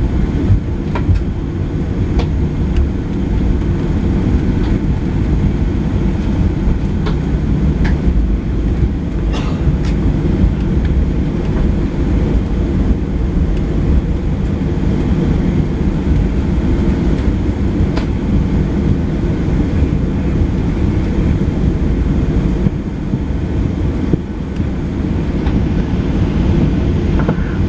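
Inside the cabin of a Boeing 737-700 taxiing: its CFM56 engines run at taxi power, with tyres rolling on concrete, making a steady low rumble. A few short clicks and knocks sound through it.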